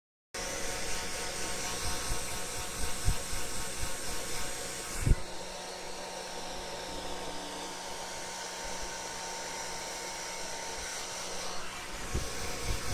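Hair dryer running with a steady rush of air. About five seconds in its sound turns duller with a low motor hum, and near the end it brightens again, with a few low thumps along the way.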